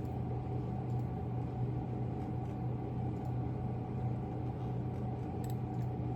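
Steady low hum of machinery in a small room, with a few faint clicks.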